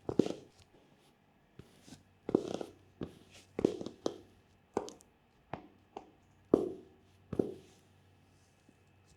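Footsteps in high-heeled, round-toe lolita shoes, picked up by a microphone clipped to the shoe: sharp heel-and-sole knocks at an uneven pace, about one every half second to a second, stopping for the last second or so.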